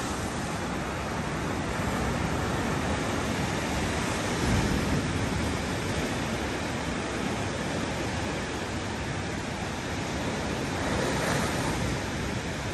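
Ocean surf washing over a flat sandstone rock platform: a steady rushing of breaking water that swells a little about four seconds in and again near the end.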